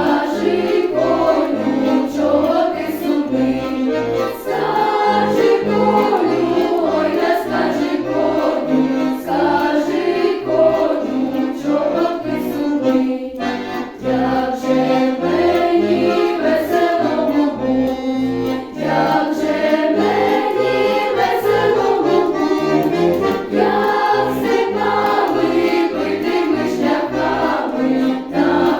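School choir singing a Ukrainian song in several voices over an instrumental accompaniment with a steady, pulsing bass line.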